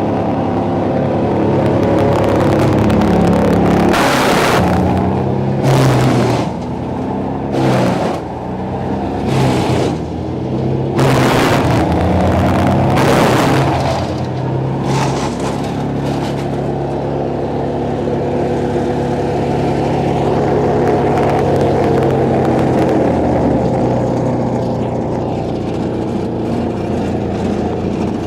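Vermeer wood chipper, powered by a turbocharged Cummins B3.3 diesel, running at speed and chewing through a big log close to 10 inches thick. About six loud crunching bursts of chipping come in the first half, with the engine pitch sagging under the load. After that it runs steadily, taking the log with no problem.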